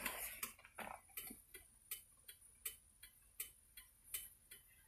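Car's turn-signal flasher clicking steadily, a little under three faint clicks a second.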